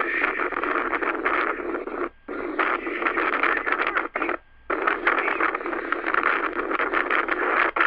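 Loud, harsh, distorted noise from replayed phone footage, squeezed into a narrow band as if heard through a small speaker. It cuts out briefly about three times.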